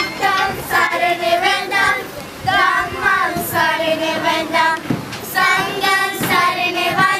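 Young girls' voices singing a song together in short phrases of about a second each, with a few sharp beats among them.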